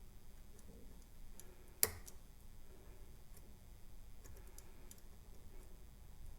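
Faint, scattered metallic ticks of a bent-wire pick working the springy levers of a chrome-plated brass lever padlock under tension, with one sharp click about two seconds in.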